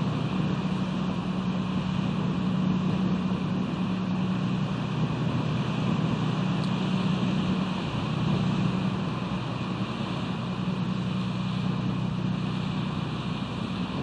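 Steady rushing wind noise on an outdoor nest-camera microphone, with a low droning hum underneath that eases briefly about eight seconds in.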